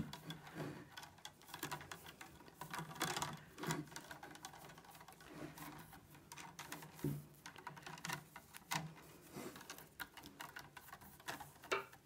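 Green willow rods clicking and rubbing against each other as they are hand-woven round willow uprights: faint, irregular small clicks and rustles.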